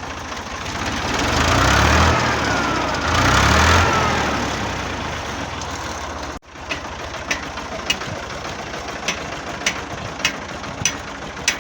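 Tractor engine revving up and back down twice. After a sudden cut, it runs steadily with a sharp regular click, nearly two a second.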